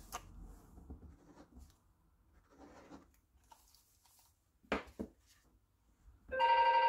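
Faint rustling of paper and card being handled, with two sharp taps just before five seconds in. Near the end a telephone starts ringing with a loud electronic ring of several steady tones.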